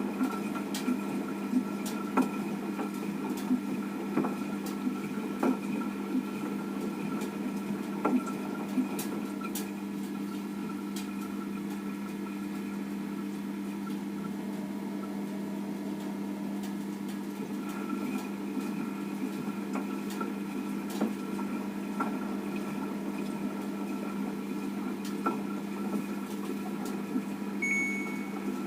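Front-loading washing machine running a wash cycle: a steady motor hum with irregular clicks and knocks from the turning drum. A short high electronic beep near the end.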